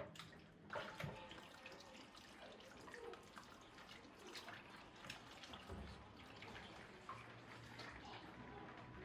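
Faint running and dripping water with scattered small knocks and clinks, like something being rinsed at a sink.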